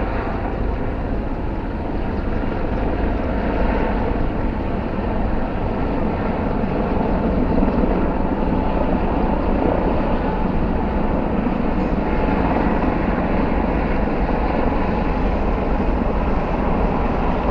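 A formation of military helicopters flying overhead: a steady rotor and engine drone that grows a little louder over the first few seconds, then holds.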